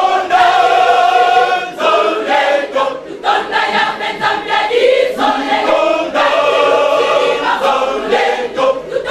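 A church choir of many men's and women's voices singing together in long, held phrases.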